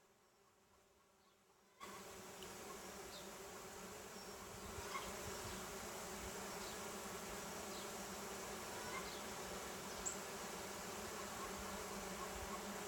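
Honeybee colony in an open hive buzzing: a steady hum that starts abruptly about two seconds in after near silence, then grows a little louder, the bees getting louder and louder as the frames are worked.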